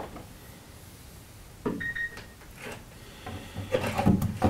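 A fish stick scraping and knocking against wood as it is pushed through a drilled hole in a wooden ceiling: a few scattered scrapes and clicks, a brief squeak about two seconds in, and more rubbing near the end.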